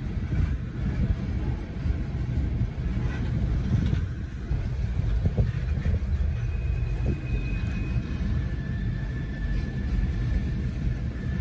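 Freight cars of a long mixed train, tank cars and boxcars, rolling past a grade crossing: a steady low rumble of wheels on rail, heard from inside a car. A thin high squeal comes in over the second half.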